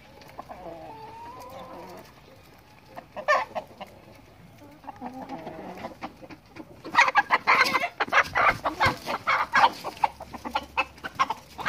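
Chickens clucking, with a rooster crowing faintly near the start. About seven seconds in, a flurry of loud, rapid squawks and cackles breaks out among the hens and rooster and keeps going.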